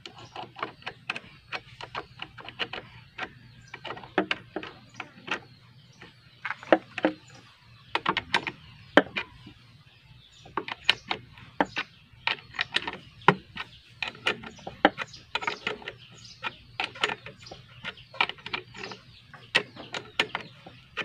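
Irregular small metallic clicks and ticks from a screwdriver working the chain-tension screw of a mini chainsaw while the saw chain is tightened on its guide bar.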